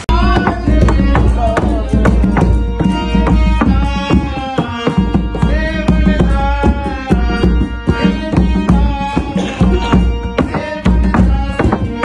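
Live Indian folk music: a dholak hand drum beaten in a quick, busy rhythm, with a harmonium and a wavering singing voice carrying the melody.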